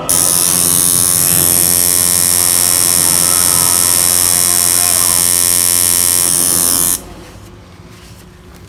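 Tattoo machine buzzing steadily as it works, then cutting off suddenly about seven seconds in.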